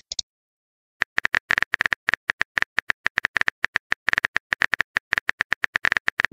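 Keyboard typing sound effect from a texting-story animation: a quick, uneven run of short key-tap clicks, one per letter, starting about a second in.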